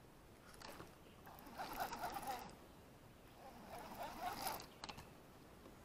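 Baitcasting fishing reel being cranked, its gears whirring faintly in three short spells a second or so long.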